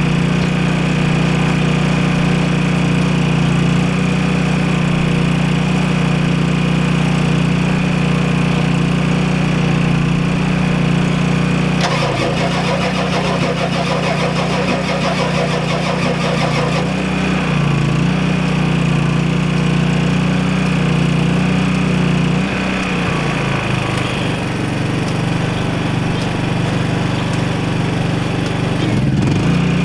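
Ford 7.3L IDI V8 diesel engine running steadily just after firing from a hard start, its note shifting a couple of times midway.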